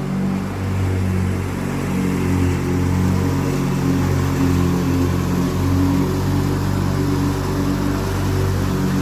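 Lawn tractor engine running steadily at a constant speed, with an even low hum.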